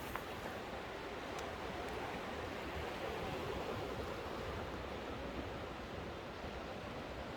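Sea waves washing against a rocky coast: a steady rush of surf, a little louder about halfway through.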